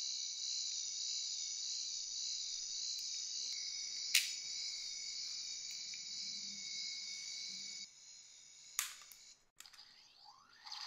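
Toy Ghostbusters PKE meter playing its electronic sound effect: a steady high-pitched tone that cuts off about eight seconds in. Two sharp clicks, the louder one about four seconds in, and near the end a new sweeping electronic tone starts.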